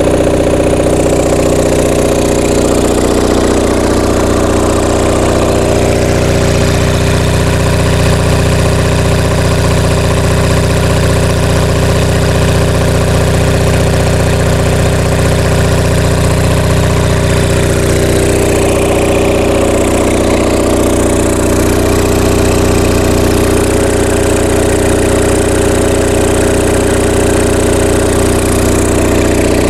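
Onan MDJE diesel generator set running steadily at governed speed, its generator putting out about 60 Hz while under electrical load.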